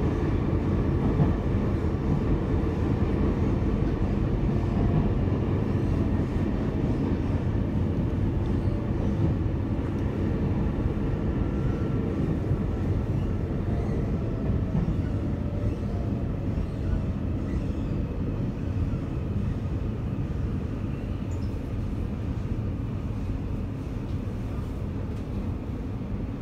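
Electric commuter train heard from inside the passenger car: a steady low rumble of running gear and track, with a faint motor whine falling in pitch and the overall sound easing off as the train slows into a station.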